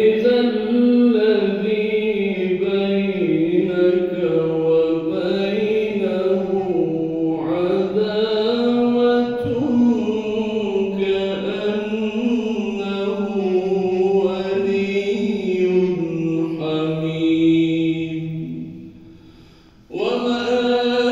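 A man reciting the Qur'an (an aşr-ı şerîf) in a melodic, ornamented chant into a microphone. One long phrase with sliding, bending pitch fades out near the end, and a new phrase begins just before it finishes.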